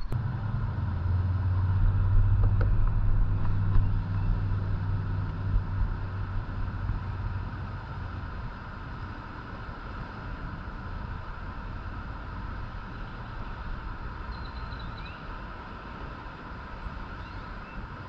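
Low engine rumble of a passing motor vehicle, strongest for the first several seconds and fading away about eight seconds in, leaving a steady faint hiss.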